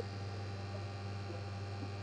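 Faint steady low hum with no other sounds: room tone.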